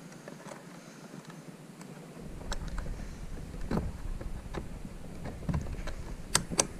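Kayak handling sounds: wind rumble on the microphone begins about two seconds in, with a few scattered knocks and clicks, two sharp ones close together near the end.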